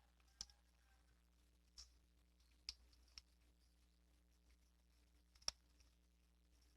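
Faint, sharp clicks and crunches, five in all and spaced unevenly, the loudest about five and a half seconds in: a cat's teeth biting on a chicken bone as it eats.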